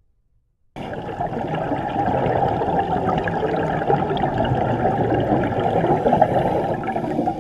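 Underwater bubbling: a dense stream of air bubbles rising and rushing, heard muffled through the camera's underwater housing, starting suddenly about a second in.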